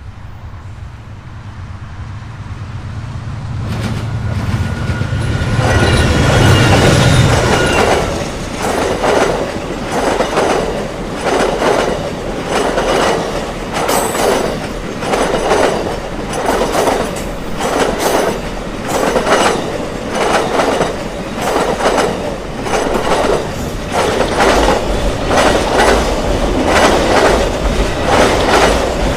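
Amtrak Auto Train passing close by: the locomotive's diesel engine hum swells as it approaches over the first several seconds. Then the long string of cars rolls past with a steady rhythmic clickety-clack of wheels over rail joints, about once a second.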